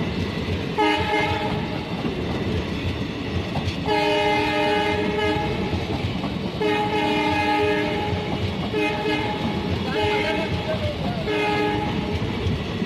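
Indian Railways passenger coaches rolling past at speed, wheels clattering over the rails, while a train horn sounds six times: a short blast about a second in, two long ones of about one and a half seconds, then three shorter ones near the end.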